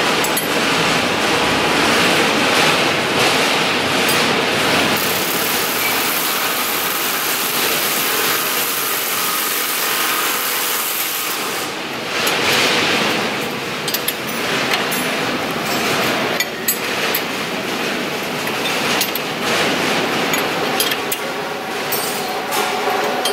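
Workshop noise in a generator assembly plant: a steady din with scattered knocks and clatter. A high hiss runs for about six seconds in the middle.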